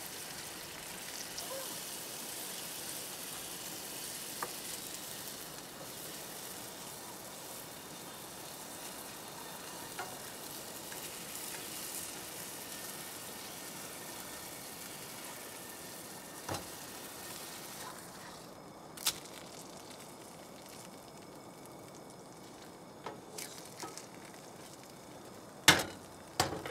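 Hamburger patties sizzling in a frying pan on a two-burner camp stove, a steady hiss that thins out about two-thirds of the way through. Scattered light clicks, and a couple of sharper knocks near the end, come from the pan being handled and a wooden spatula against it.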